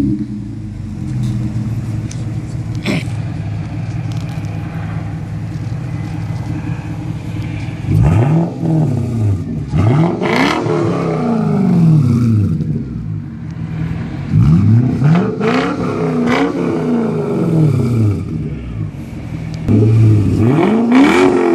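A Lexus SC's VVT-i engine exhaust idling steadily for about eight seconds, then revved up and let fall back to idle about six times.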